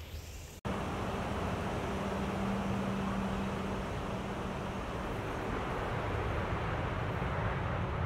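Steady outdoor background rush with a faint low hum, starting abruptly about half a second in.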